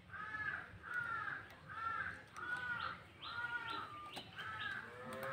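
A crow cawing over and over, a steady run of harsh caws about two a second.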